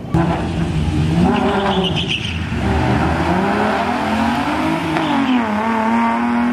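Cars launching off the line on a quarter-mile drag run. The engines rev hard, and their pitch climbs, then drops sharply at each upshift, about two and a half and five seconds in.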